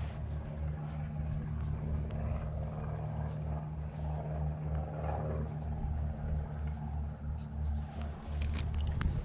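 A motor drones steadily at a low pitch with a regular pulsing, starting abruptly.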